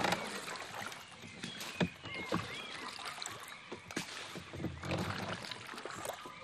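Small wooden dugout canoe knocking irregularly with water sounds against the hull as a person shifts about in it and handles a wooden pole.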